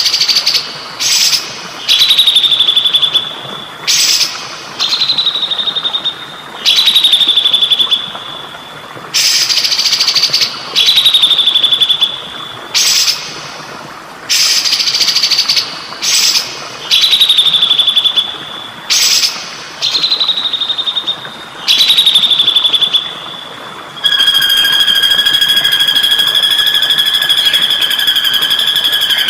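Songbird calls recorded for song training: a harsh burst followed by a high held whistle, repeated about every two seconds, then one long steady whistle for the last few seconds. A steady trickle of clear water runs underneath.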